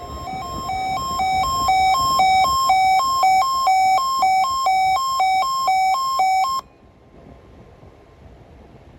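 Weather radio alert alarm: two tones beeping in alternation, high-low, a little under three cycles a second. It grows louder over the first couple of seconds, then cuts off suddenly about two-thirds of the way through, leaving faint static.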